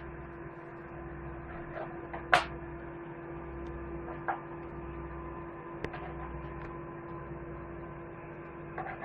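Microwave oven running with a steady hum and a held mid tone, heating a cod loin. A few sharp clicks from the knife and orange segments on the cutting board cut across it, the loudest a couple of seconds in.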